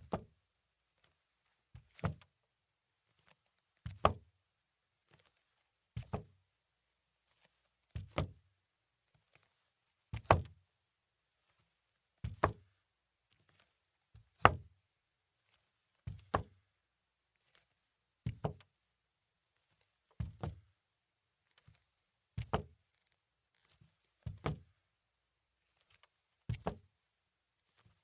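Slow footsteps on wood, about one step every two seconds. Each step lands as two quick dull thuds, heel then toe.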